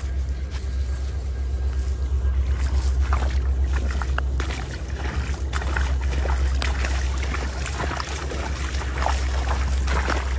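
Wind buffeting the phone's microphone as a steady low rumble. From about two seconds in, footsteps crunch irregularly over wet creek gravel.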